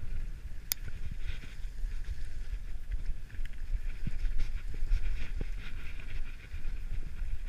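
Mountain bike rolling fast down a dirt trail: a low rumble with a pulsing hiss from the tyres, and scattered knocks and rattles from the bike, one sharp click under a second in.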